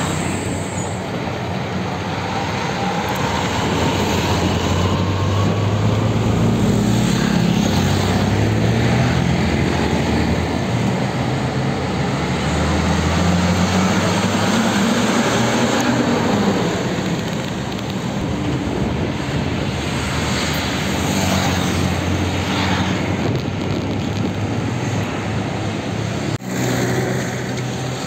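Heavy diesel tanker trucks driving past one after another, their engine drone swelling and fading with each pass over steady road-traffic noise. The sound breaks off abruptly near the end.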